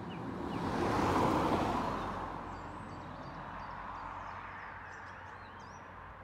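A car passes: a swell of road noise rises about a second in and fades away over the next couple of seconds. Birds chirp in short, high notes at the start and again in the second half.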